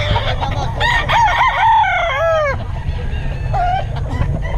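Gamecocks crowing: one close rooster gives a long crow about a second in, lasting about a second and a half and falling in pitch at its end, with a shorter call near the end and other roosters calling around it over steady low background noise.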